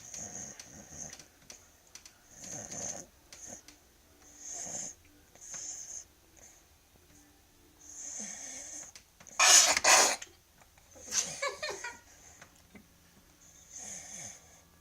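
A sleeping dog snoring like a human: a run of snores every second or two, the loudest a pair of sharp snores about two-thirds of the way through, followed by a higher-pitched one.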